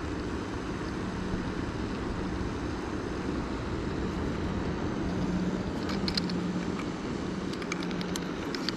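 A steady low motor hum with a rushing noise, swelling slightly around the middle, with a few faint clicks near the end.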